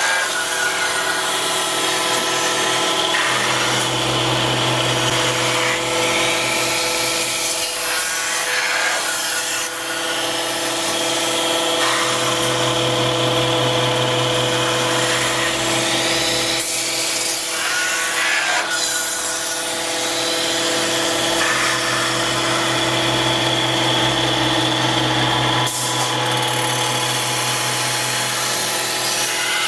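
A metal lathe turning a horn-shaped metal workpiece: a steady machine whine with the scrape of the tool on the metal. A deeper hum comes and goes every few seconds.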